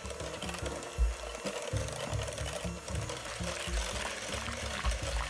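Electric hand mixer running steadily, its twin beaters whirring through thick, creamy batter of eggs, oil and yogurt in a glass bowl.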